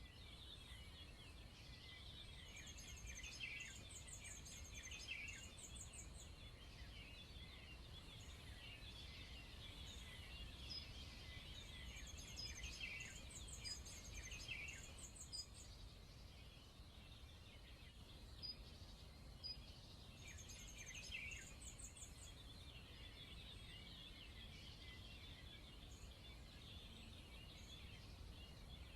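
Faint outdoor ambience of many small birds chirping, with bursts of very high, rapid trills every several seconds, over a low steady rumble.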